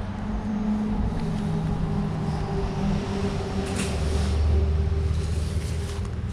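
Motor vehicle traffic on the bridge overhead: a steady engine hum with a deep rumble that swells about four seconds in, with a faint knock just before it.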